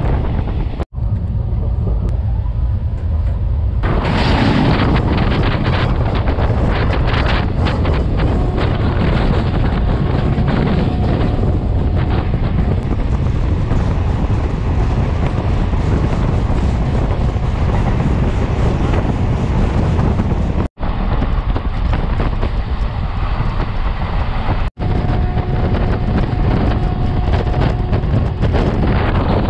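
Wind buffeting a microphone held outside a moving passenger train, over the train's steady running rumble. The sound drops out abruptly three times, where clips are joined.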